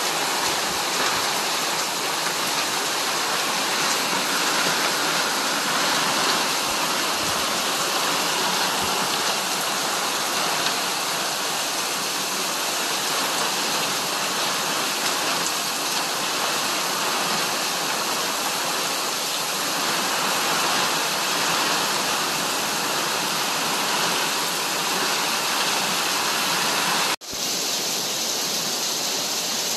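Heavy storm rain pouring down: a loud, steady, dense hiss. It cuts out for an instant about 27 seconds in and comes straight back.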